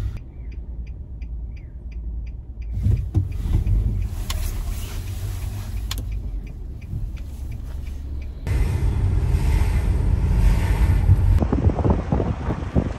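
Low rumble of a minivan's engine and road noise heard inside the cabin, with a run of light, evenly spaced ticks in the first couple of seconds and the noise growing louder and hissier later on.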